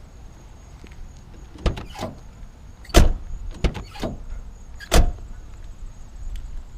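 Ford Crown Victoria doors being worked open and shut: a few lighter knocks and clunks, then two loud door slams about two seconds apart.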